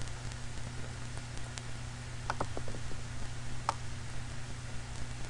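Clicks from a computer mouse and keyboard: a quick cluster of clicks about two and a half seconds in and a single click a little later, over a steady low hum.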